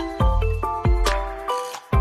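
Background music: short, bright melody notes over a bouncing bass beat, with light percussion ticks.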